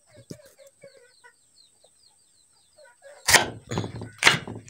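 Chickens clucking, with two loud, sharp clucks about three and four seconds in, and faint high chirps in the first two seconds.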